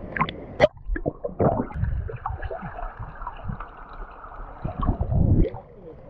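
Water sloshing and gurgling around a camera held at the waterline, with irregular splashes and muffled low surges as the microphone dips in and out of the water; the biggest surge comes near the end.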